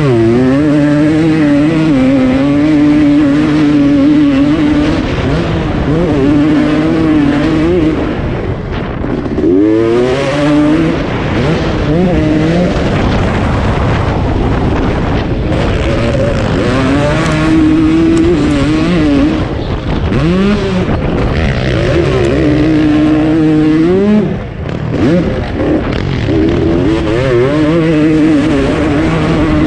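Kawasaki KX250 two-stroke motocross engine at full throttle, heard from the rider's helmet camera. It holds high revs for stretches, and several times the pitch sweeps sharply up and drops again as the throttle is opened and shut.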